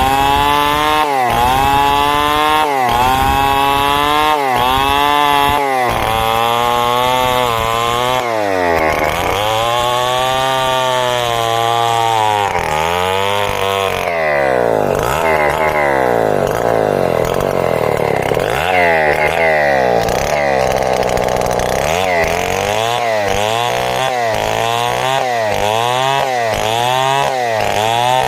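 Two-stroke chainsaw ripping timber into boards, its engine pitch rising and falling over and over as the load in the cut changes. The swells come about once a second at first, slow and blur together in the middle, then quicken again near the end.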